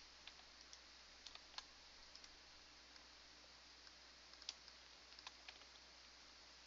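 Faint, scattered clicks of computer keyboard keys and a mouse over a low steady hiss, a handful of them louder than the rest.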